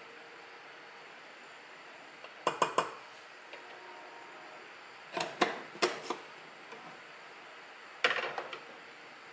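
Metal spoon and kitchenware clinking and being set down on a kitchen counter, in three short runs of sharp clinks about three seconds apart.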